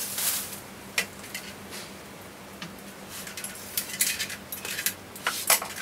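Plastic wrapping crinkling and rustling in short bursts as a ring light is unwrapped and handled, with a few light clicks from the ring and its fittings.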